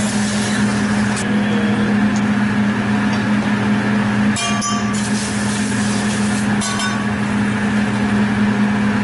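Vegetables sizzling on a hot hibachi steel griddle over a steady low hum, with a metal spatula clinking against the griddle twice, about four and a half and about seven seconds in.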